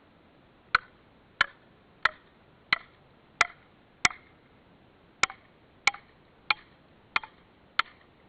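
Eleven sharp strikes of a tool on wood at a steady pace, about one and a half a second, with a short pause after the sixth.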